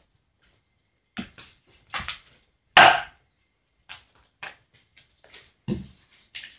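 A series of short knocks and taps as a plastic Play-Doh tub is pressed down onto modelling dough on a hard tabletop and set down, with hands handling the dough; the loudest knock comes about three seconds in.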